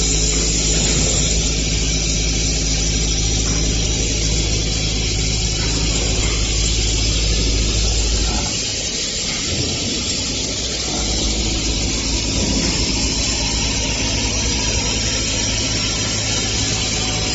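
CNC machine cutting a 4340 alloy steel die for a pipe elbow: a steady machine hum with a dense hiss over it. The deepest part of the hum drops away about eight seconds in.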